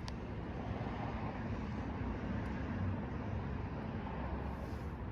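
Steady low background rumble of outdoor noise, with one sharp click right at the start.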